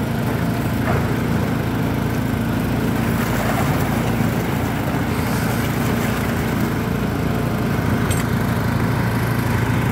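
Engines of a concrete mixer and winch hoist running steadily at a building site, a constant mechanical hum. A brief noisy patch about halfway through and a faint click near the end sit over it.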